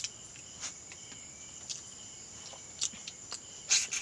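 Night insects, crickets among them, chirring steadily in a high, even drone, with a few scattered clicks and knocks, the loudest near the end.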